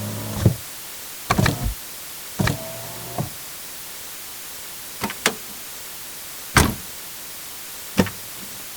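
Car door sound effects: an electric motor hum stops just after the start, then latch clicks, a door shutting and a short motor whir. From about five seconds in come truck door sounds: two latch clicks, then two separate heavy door slams.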